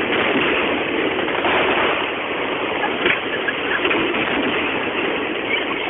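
Aerial fireworks going off, a few dull bangs heard over a steady rushing noise, through a mobile phone's microphone.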